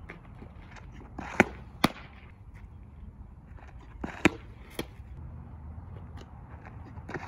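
Fastpitch softball windmill pitches: sharp leather smacks of the ball and gloves, in pairs about half a second apart, coming three times, roughly every three seconds.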